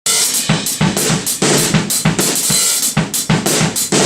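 A drum kit starts abruptly and plays a fast, steady beat: heavy kick and snare hits about four a second under constantly washing cymbals.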